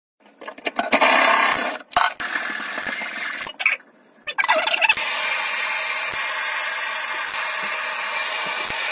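Scraping and rubbing at a copper pipe stub, then from about five seconds in a hand-held gas torch hissing steadily as its flame heats a copper fitting for soldering.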